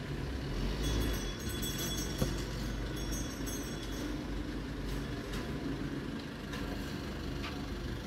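Steady low background rumble, with a few faint clicks of multimeter test probes touching the circuit board.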